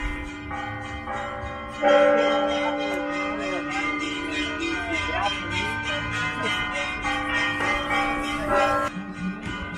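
Church bells ringing, several bells struck over and over in quick succession with long ringing tones, louder from about two seconds in. People's voices can be heard under the bells.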